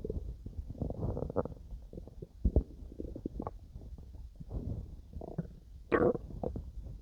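Human stomach growling and gurgling during digestion: irregular rumbles and squelches, with louder bursts about two and a half and six seconds in.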